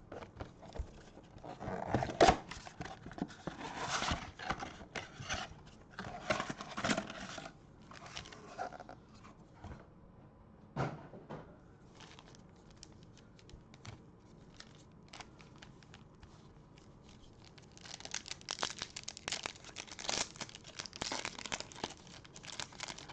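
Plastic wrapping on a box and packs of trading cards being torn open and crinkled, in two spells, with a sharp click and a few light rustles between them.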